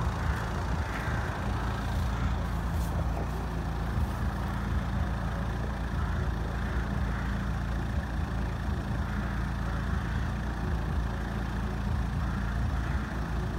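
A road vehicle's engine idling: a steady low rumble with no rise or fall.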